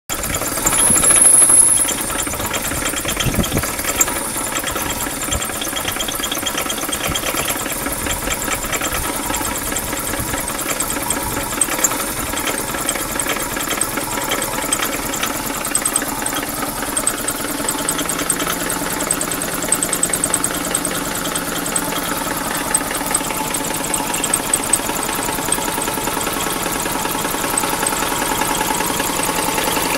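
2000 Chevy Metro four-cylinder engine running with a steady, rapid knock, which the owner suspects comes from worn-out rod bearings on cylinders 2 and 3 after the engine ran low on oil and overheated. A brief louder noise comes in the first two seconds.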